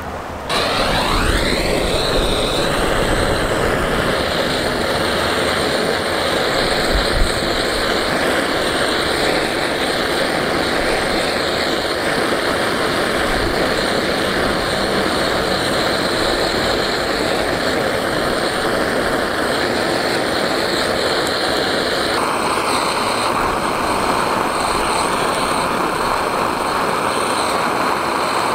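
Handheld gas blowtorch on a canister, running with a loud, steady rushing hiss as its flame is held against a laptop's plastic case. It starts suddenly about half a second in, sweeps up in pitch over the first two seconds, and shifts slightly in tone about 22 seconds in.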